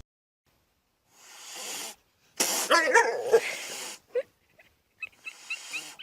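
A pet animal's cry, lasting about a second and wavering in pitch, beginning about two and a half seconds in, with a few short faint chirps near the end.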